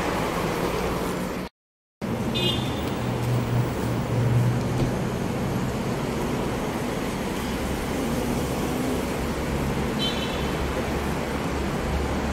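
Steady traffic noise from a busy multi-lane road, with passing cars and buses. The sound cuts out for about half a second near the start.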